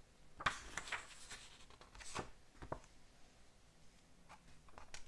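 Pages of a paperback manga being turned by hand: several soft papery rustles and swishes, the strongest about half a second in and another around two seconds in.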